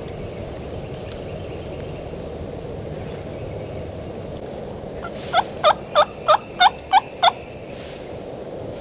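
Turkey yelping: seven loud, evenly spaced yelps in a quick run of about two seconds.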